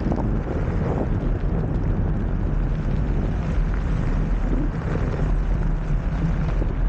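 Steady wind noise buffeting the microphone, over the low rumble of a blokart's wheels rolling across rough tarmac.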